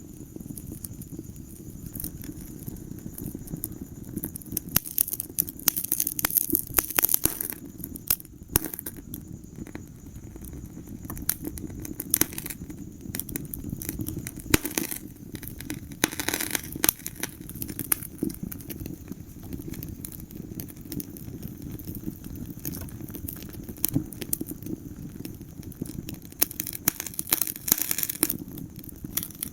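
Wood fire crackling in a fireplace: frequent sharp pops and snaps over a steady low rumble of the flames, thickening into denser flurries of crackling three times.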